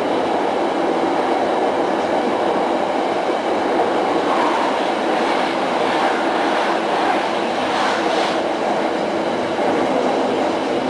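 Steady rolling noise of a passenger coach's wheels on the rails, heard from inside the coach at speed. About four seconds in, a train passing on the next track adds a rush of higher-pitched noise that cuts off sharply about eight and a half seconds in.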